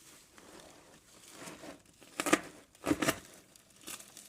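Plastic wrapping crinkling and tearing as it is pulled off by hand, with sharp rustles about two seconds in and again about three seconds in.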